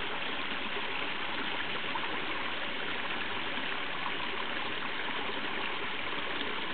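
Small woodland stream running over rocks: a steady, even rush of water with no breaks.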